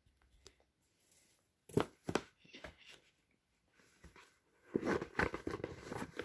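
Cardboard product box being handled and opened: a few sharp knocks about two seconds in, then steady rustling and scraping of cardboard from about five seconds in.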